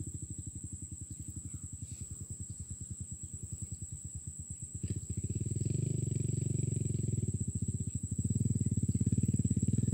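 Small engine running with a rapid, even low putter, growing louder about five seconds in and again near the end.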